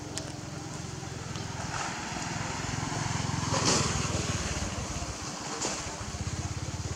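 A motor vehicle's engine running with a fast, even pulse. It grows louder to a peak a little past halfway, then eases off, like a vehicle passing by.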